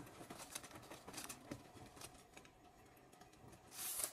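Faint scattered scratching and light ticks of a small kitchen knife cutting a circle into the top of a baked sponge cupcake, with a brief rustle near the end.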